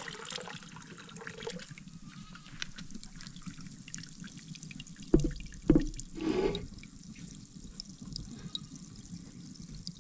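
Water running steadily, with two sharp knocks about half a second apart a little after five seconds in and a short, louder sound right after them.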